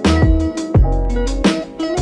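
Outro music: plucked, guitar-like notes over a beat of deep kick drums that drop in pitch, about two a second.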